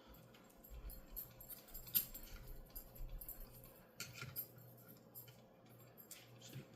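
Faint, scattered clicks and taps of small tools and parts being handled, with a sharper click about two seconds in and a few more around four seconds in, over a steady low hum.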